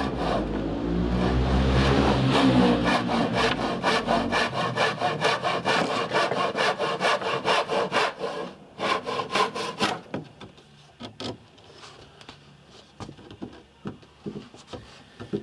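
Handsaw cutting through thin wooden battens in quick, even strokes, which stop about ten seconds in; after that come a few scattered light knocks and clicks. A low rumble sits under the first few seconds.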